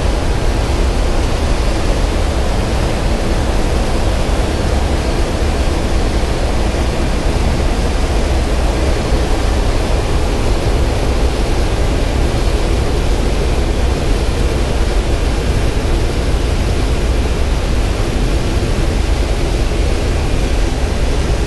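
Steady cockpit noise of a C-17 Globemaster III in flight: a constant deep rumble with air-rush hiss from its turbofan engines and the airflow over the airframe.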